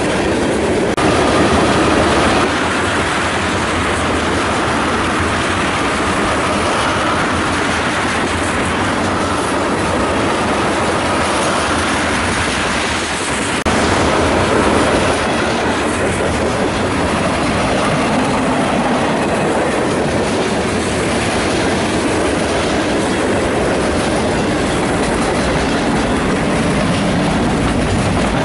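Freight train of tank cars and covered hoppers rolling past at close range: a steady rumble and clatter of steel wheels on the rails. The sound jumps abruptly about a second in and again about fourteen seconds in.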